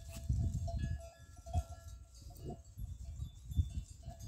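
A small livestock bell clinks faintly and repeatedly, with an uneven low rumble that is strongest about the first second.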